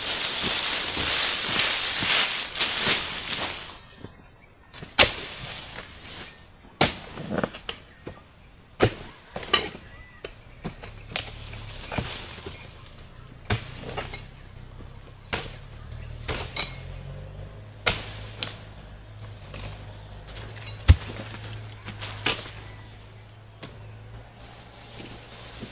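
A cut oil palm frond comes down with a loud rustle for the first few seconds. It is followed by irregular sharp strikes, about one every second or two, of a dodos (a chisel blade on a long pole) chopping into frond bases and bunch stalks on a low oil palm. Insects keep up a steady high-pitched drone throughout.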